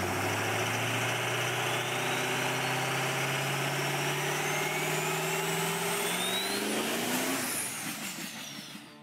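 Car engine sound effect: the engine runs steadily, then revs up about six to seven seconds in. A high whine climbs steadily in pitch alongside it, and the sound fades out near the end.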